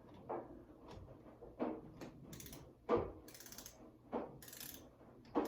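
A screwdriver turning a screw into a light switch, with repeated clicks and knocks and short scraping twists about once a second.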